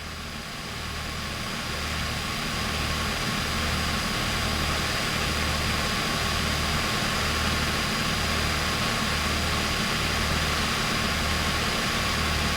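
Steady cabin noise of a Beechcraft Travel Air's twin piston engines in cruise, heard as a broad hiss that builds over the first few seconds. Under the hiss is a low throb pulsing about once a second.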